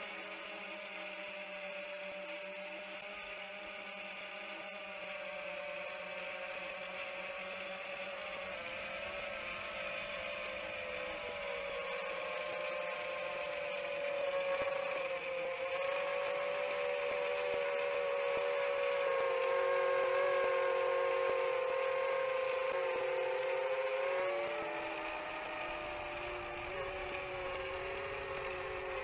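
Chimera 7 long-range FPV quadcopter's brushless motors and 7-inch propellers whirring steadily in flight, several whining tones at once. The whine grows louder through the middle and drops in pitch and level about 24 seconds in as the throttle eases.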